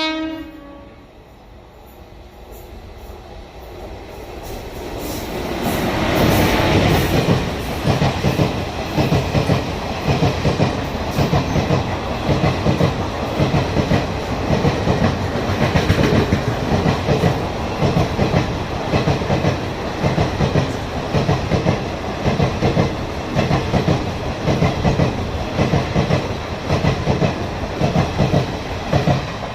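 A train approaching and passing close by, just after a horn note that cuts off at the start. Its rumble builds over the first few seconds, then the wheels clatter over the rail joints in a steady, regular clickety-clack.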